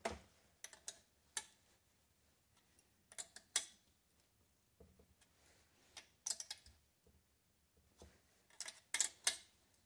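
Light metallic clicks and clinks in short irregular clusters as a small wrench is fitted and turned on the starter's mounting nuts, snugging them onto the 1/4-20 studs.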